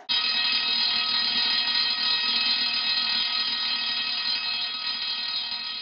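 Steady electronic buzzer tone: one unbroken, unwavering sound that cuts in suddenly and slowly grows fainter.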